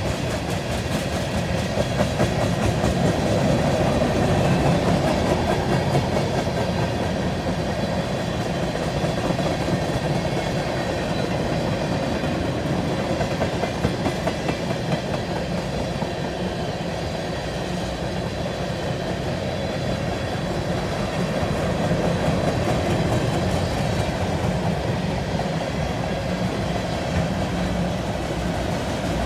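CN freight train's cars rolling past in a steady rumble, the wheels clicking rhythmically over rail joints.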